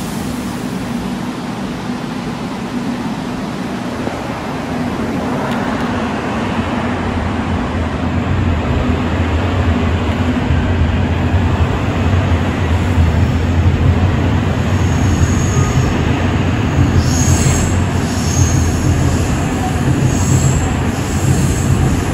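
A new Korail Line 4 electric subway train pulling out of the station. Its running noise builds steadily as it gathers speed, with a deepening hum, and several brief high squeals come in the second half.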